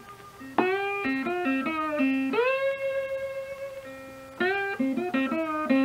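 Background music: a solo guitar playing a slow melody of plucked notes in short runs, with one long note slid up into and held in the middle.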